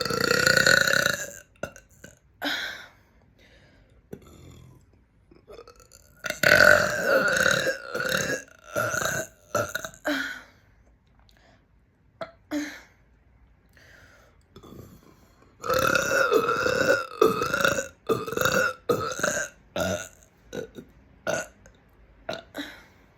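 A person belching repeatedly and loudly. There is a long belch at the start, then two long drawn-out bouts of belching, one from about six seconds in and one past the middle, with shorter belches scattered between and near the end.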